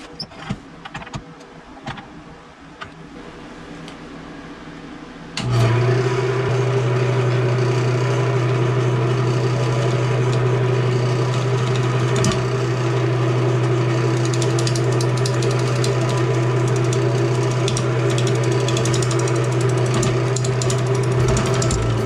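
A JET wood lathe is switched on about five seconds in and runs with a steady motor hum, spinning a cherry bowl. A few light clicks come before it starts.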